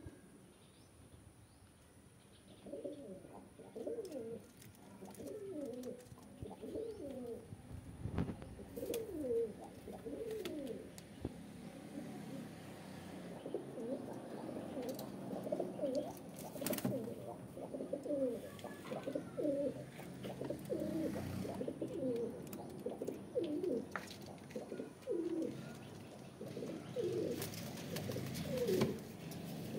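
Domestic pigeons cooing in a loft, several birds calling over one another in repeated low, falling coos that begin a few seconds in. A few sharp clicks sound among the calls.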